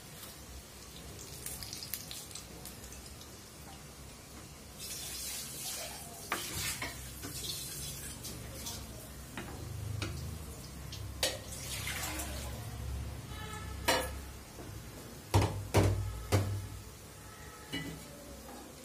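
Oil sizzling as egg chops deep-fry in a pan, with a metal slotted spoon scraping and knocking against the pan as they are turned and lifted out. Several sharp knocks come near the end.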